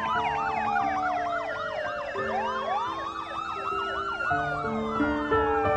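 Several emergency vehicle sirens sound together: a rapid yelp of quick repeating sweeps over slow wails that fall, climb again about two seconds in, and fall once more. A song's sustained notes run underneath.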